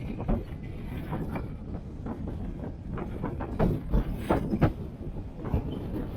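Toyota Prius driving, with a steady low rumble of tyre and road noise. Many small knocks and clicks come through it as the car rolls over an uneven surface.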